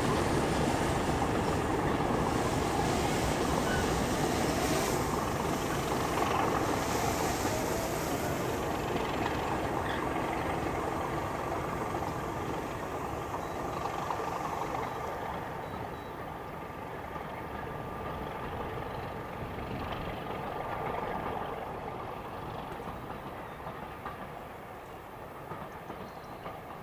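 Heritage diesel locomotive and its train running along the line, the sound fading steadily as it moves away.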